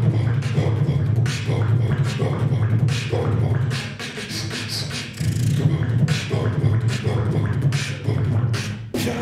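Beatboxing into a cupped handheld microphone: rapid percussive mouth sounds over a low sustained hum, easing off briefly about four seconds in before picking up again.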